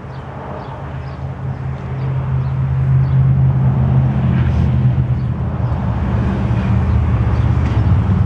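A low, steady engine hum that swells over the first three seconds, then holds.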